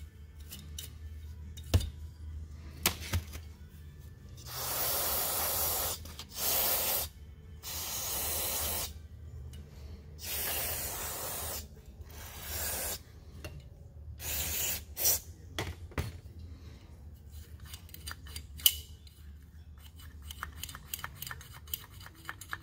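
Aerosol carburetor cleaner sprayed from its straw onto a grimy carburetor body in about seven hissing bursts, each up to a second and a half long. After them come scattered small clicks and scrapes as the part is handled.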